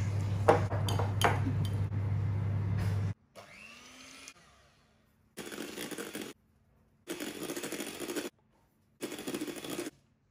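Electric hand mixer whipping egg whites into meringue in a steel bowl, running in three short stretches of about a second each. Before that comes a wire whisk clinking a few times against a ceramic bowl over a steady low hum.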